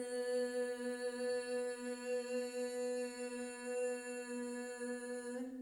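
A woman's voice holding a long voiced "L" sound on one steady pitch, with the tongue tip behind the upper front teeth, so that it comes out as a hum. It stops just at the end.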